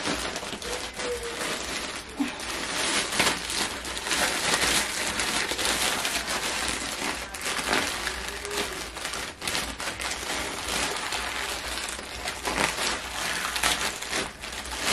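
Plastic courier mailer bag crinkling and crackling as it is handled and pulled open, a dense unbroken run of rustles.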